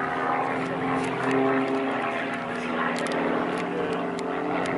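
Propeller aircraft engines droning overhead, holding steady with slight drifts in pitch as the planes fly their display.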